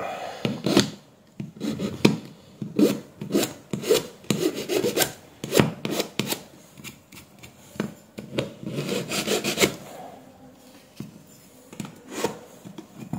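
Flat metal file scraping across the plastic housing of an Apple 20 W USB-C charger in a run of short, uneven strokes, easing off near the end before a last few strokes.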